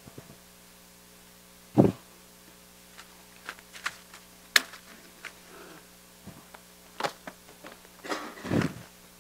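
Handling noise at a pulpit microphone as papers and a Bible are gathered up: a thump about two seconds in, then scattered small clicks and a rustle near the end, over a steady electrical hum.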